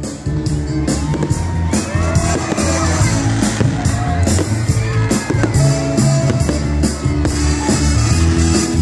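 A live band and a group of singers performing a Christmas song with a steady beat, recorded on a phone.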